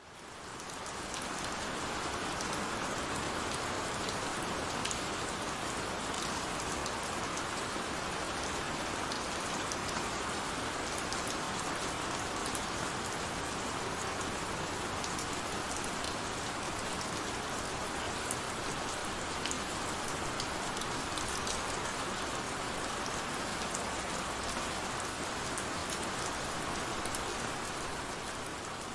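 Heavy rain falling steadily, a dense hiss with scattered sharp drop ticks; it fades in from silence at the start.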